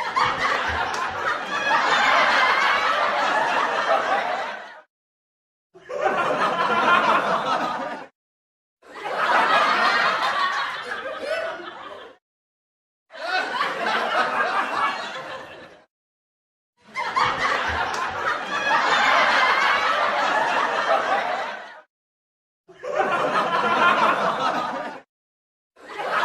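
Canned sitcom studio-audience laughter: a string of separate laugh-track clips, each a few seconds long, cut off into short silences between them, seven in all with the last one starting near the end.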